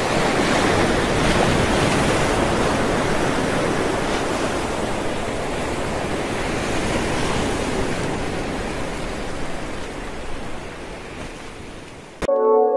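Surf breaking and washing up a beach: a steady rush of waves that slowly fades, then cuts off abruptly near the end as music with held notes begins.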